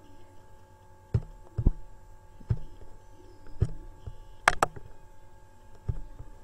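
Computer mouse clicking: several dull single clicks about a second apart, and a sharper double click just past the middle, over a faint steady electrical hum.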